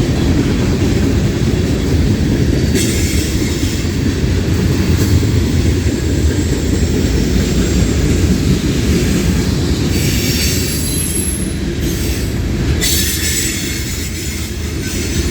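Freight train cars rolling past at close range: a steady rumble of steel wheels on rail, with stretches of high hiss and a brief thin wheel squeal about two-thirds through.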